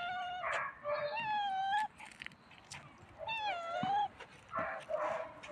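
A stray cat meowing over and over, three long drawn-out meows that bend in pitch, about two seconds apart: a cat asking for food.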